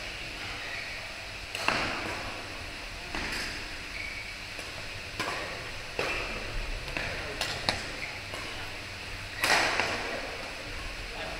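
Badminton rally: rackets striking the shuttlecock with sharp, echoing hits about every one to two seconds, the loudest about nine and a half seconds in. A few short high squeaks from sneakers on the court floor come in between.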